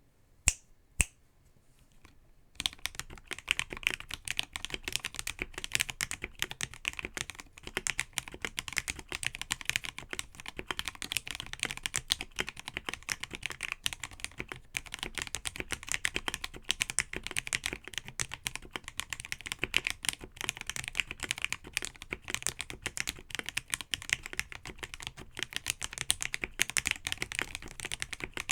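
Rapid, continuous typing on an AKKO ACR98 acrylic mechanical keyboard with lubed AKKO CS Jelly White linear switches and ASA-profile PBT keycaps. Two single key clicks come first, and the steady typing starts about two and a half seconds in.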